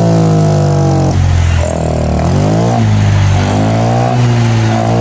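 Honda Vario 125 scooter's single-cylinder engine running after a tune-up and ECU reset, steady at first, then its pitch dips and climbs again as the throttle is worked around the middle.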